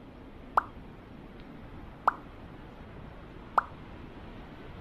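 Three short cartoon-style 'plop' pop sound effects, evenly spaced about a second and a half apart, over a steady background hiss.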